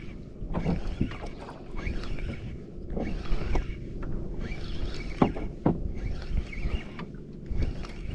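Water slapping and splashing against the hull of a small fishing boat in repeated washes about every second, over a low wind rumble.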